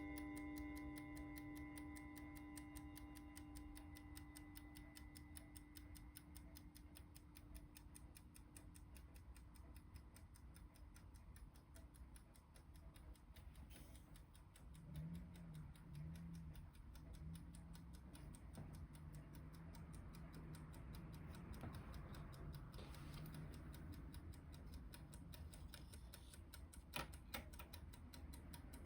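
Faint, fast, even ticking of an Aichi spring-wound 14-day mantel clock's movement. The ringing of its chime fades away over the first few seconds, and a couple of louder clicks come near the end.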